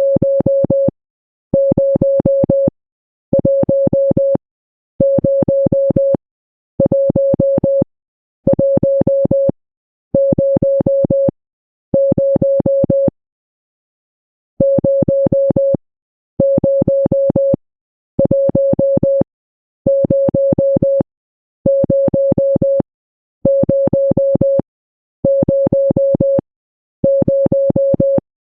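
Electronic Morse-code tone at one steady mid pitch, keyed in even beeps of about a second with short gaps: eight beeps, a short pause, then eight more.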